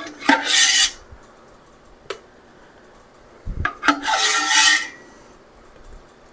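Wooden spoon scraping the inside of a stainless steel stockpot, two rasping scrapes about a second long each, gathering the last of the apple pie filling sauce.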